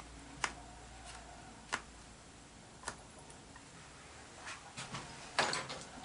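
Faint clicks of small parts being handled and fitted together by hand: three single clicks about a second apart, then a quicker cluster of clicks and light rustling near the end.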